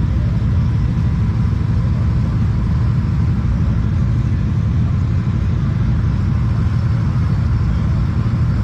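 Off-road vehicle engine running steadily, a loud low rumble.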